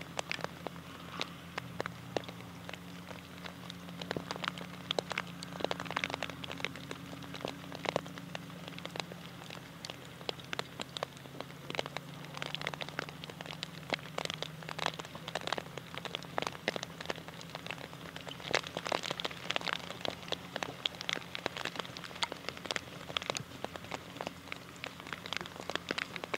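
Rain pattering on a nearby surface: dense, irregular drops ticking, over a low steady hum.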